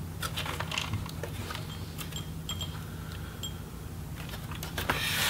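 Plastic snap clips of an HP Pavilion 17 laptop's palm rest clicking and popping as it is pried up by hand from the bottom case, a scatter of small irregular clicks with some plastic rubbing.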